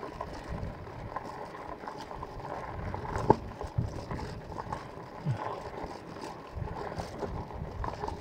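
Riding noise from a Magicycle electric bike on a paved road: wind on the microphone and tyre rumble, with a few light knocks and rattles from the bike, the loudest about three seconds in.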